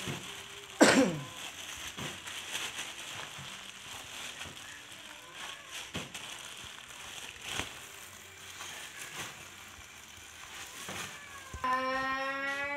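A plastic bag of food crinkling and rustling as it is handled, with scattered small clicks. About a second in comes one loud, brief squeal that falls steeply in pitch, and near the end a cat gives a long, steady meow.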